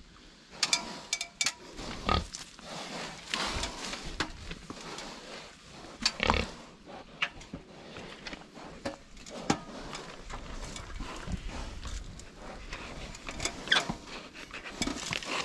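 Pigs grunting close by, mixed with repeated knocks and clanks from an aluminium ladder and the rustle of dry brush as someone climbs over a wire fence.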